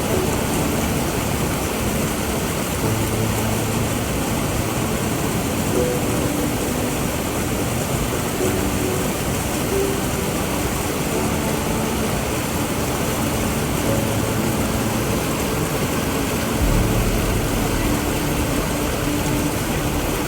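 Steady rushing roar of a waterfall, an even wash of water noise with no breaks. About seventeen seconds in, a deeper low rumble joins it.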